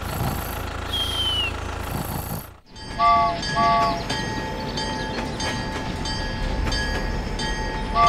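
Toy train set: a steady running rattle with two quick two-note horn toots about three seconds in and two more toots at the end. Before that comes a short falling whistle.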